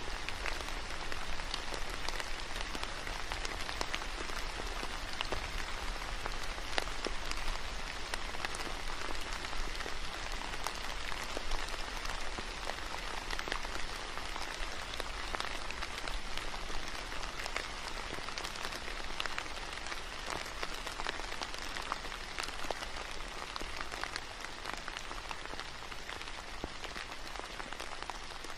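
Steady rain falling, with many small drop ticks running through it.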